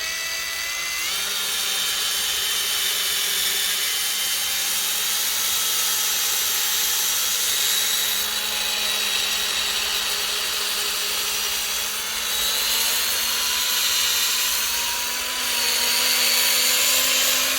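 Small electric drill running continuously, drilling out the rivet that holds a diecast toy car's base, with a steady motor whine and a grinding hiss from the bit in the metal. The pitch rises slightly near the end, and the sound dips briefly twice.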